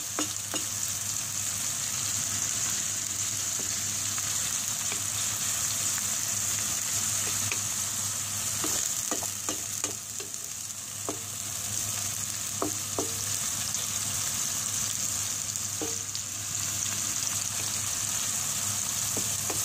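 Diced onion and tomato sizzling in oil in a frying pan, a steady hiss, with a spatula scraping and tapping against the pan every so often as they are stirred.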